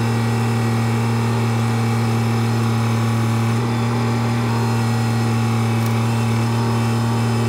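Excavator engine running at a steady speed, one even drone with no change in pitch.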